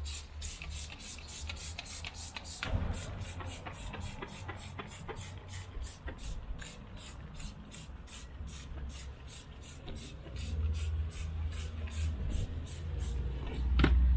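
Simple Green degreaser sprayed from a trigger spray bottle in quick, rapid squeezes, about four short hisses a second. A low rumble grows louder near the end.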